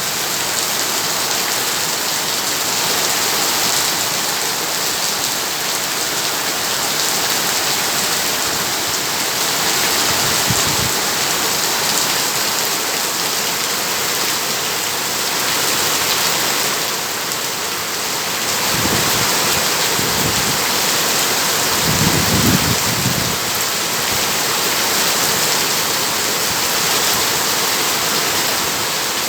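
Heavy, steady downpour of rain. A few brief low rumbles come through it, about ten seconds in and twice more around twenty seconds in.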